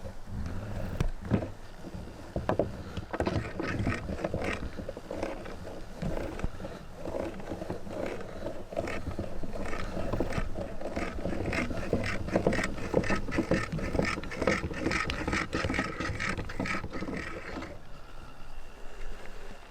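Meat grinder grinding soap: a steady low hum under dense crackling, clicking and scraping as the soap is forced through. The grinding noise thins out near the end.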